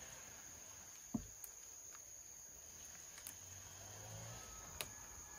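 Faint, steady high-pitched trill of insects, with a few soft clicks or knocks about a second, three seconds and nearly five seconds in.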